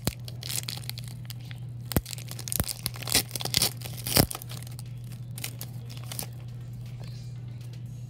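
Foil Pokémon booster pack wrapper crinkling and tearing open, with sharp crackles and snaps through the first four seconds or so, then only faint handling. A steady low hum lies underneath throughout.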